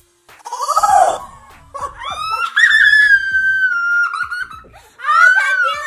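Girls shrieking and laughing: a brief hiss with a cry about half a second in, as shaving-cream foam squirts from a cut balloon. Then one long high shriek lasting about two seconds, and a shorter one near the end.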